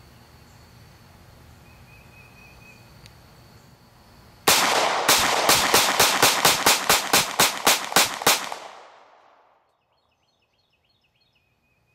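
Beretta Px4 Storm Sub-Compact 9mm pistol fired rapidly, a quick string of about fifteen shots over some four seconds, starting about four and a half seconds in.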